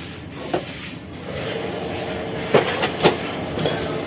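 A few sharp knocks from hand tools working on a replacement starter motor as it is fitted, over a steady background rumble.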